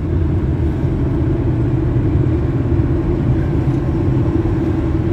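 Steady low rumble of a moving car, road and tyre noise with no distinct events.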